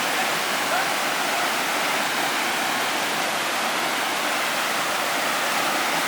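Steady, even rush of a waterfall pouring over rock.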